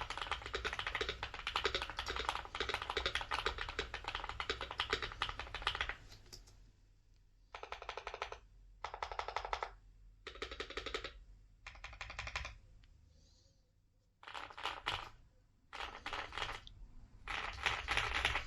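Typing on a Keychron Q3 mechanical keyboard with Boba U4T tactile switches and GMK Infernal keycaps. There are about six seconds of fast, continuous key clacking, then seven short bursts of typing with brief pauses between them.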